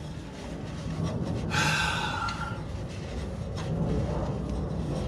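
A man breathing hard from the strain of getting up off the floor, with one strained, slightly falling exhale about one and a half seconds in, over a steady low hum.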